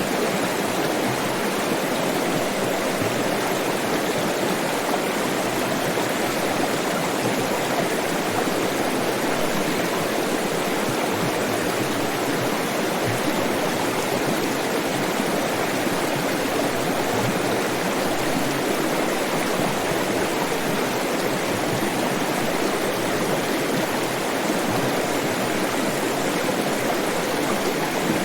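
Flowing water rushing steadily, like a stream over rocks, an even unbroken wash of sound.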